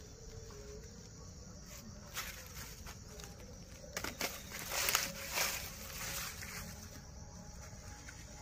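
Footsteps rustling and crunching in dry leaf litter, a few scattered steps loudest about four to five and a half seconds in, over a steady high insect drone.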